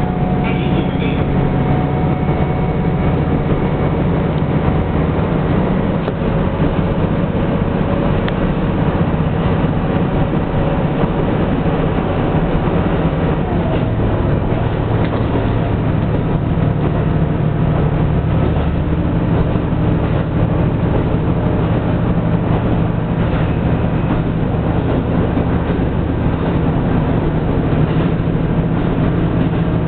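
Diesel railcar running at speed, heard from on board: a steady engine drone with rumbling running noise, the engine note shifting about halfway through.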